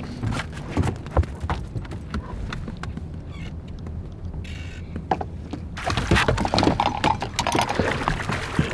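Splashing and knocks of a hooked smallmouth bass being fought to the side of a bass boat. The splashes grow louder and busier over the last few seconds as the fish reaches the surface by the hull.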